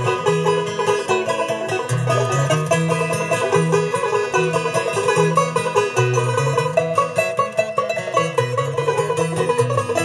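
Live bluegrass band playing an instrumental break on acoustic plucked string instruments: quick picked notes over a stepping bass line, with no singing.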